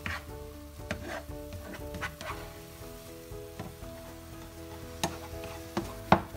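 Tomato and egg sizzling in a frying pan while a spatula stirs and scrapes it, with irregular clicks. A louder clatter about six seconds in comes as the pan is jerked in an attempt to flip the food. Background music with held tones plays underneath.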